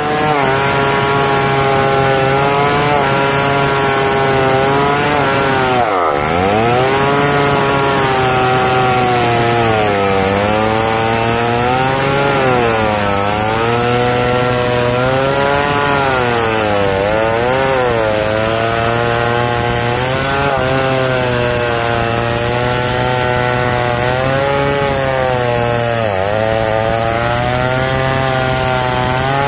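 Stihl 070 two-stroke chainsaw running at full throttle while ripping lengthwise through a log. Its engine pitch dips as the chain bogs under load in the cut, sharply about six seconds in and again near the end, and wavers up and down through the middle.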